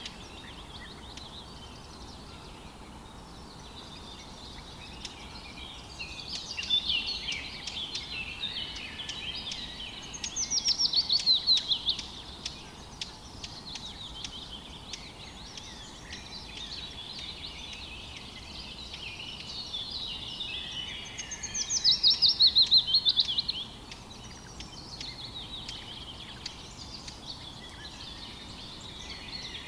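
Several songbirds singing and calling over faint steady background noise, with two louder songs of quickly repeated falling notes, one about ten seconds in and one about twenty-two seconds in.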